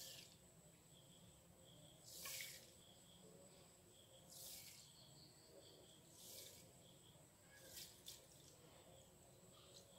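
Faint soft hisses of granulated sugar sliding out of a small bowl into a blender jar of milk, four short pours a couple of seconds apart, otherwise near silence.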